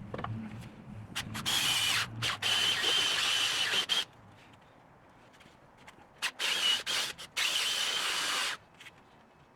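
Power drill driving fasteners in stop-start runs: a long run of about two and a half seconds, then after a pause a few short triggers followed by another run of about a second, each with a steady high whine.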